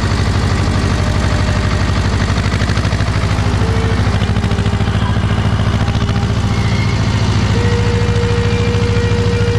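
Small tractor's engine running steadily under way, a fast even chugging close to its upright exhaust pipe.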